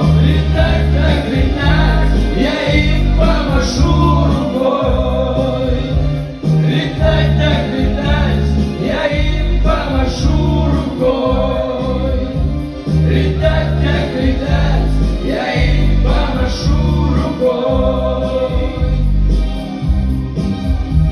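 Pop song playing: singing voices with a choir-like backing over a steady, pulsing bass beat.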